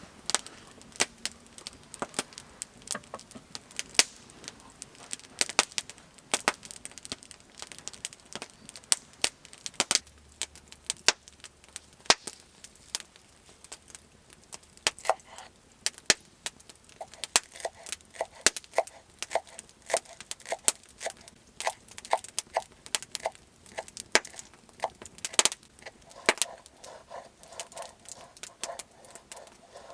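A rapid, irregular run of sharp cracks and clicks, several a second, some much louder than others.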